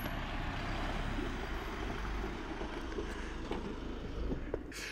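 Mercedes-Benz Sprinter van driving past, a steady rumble of engine and road noise.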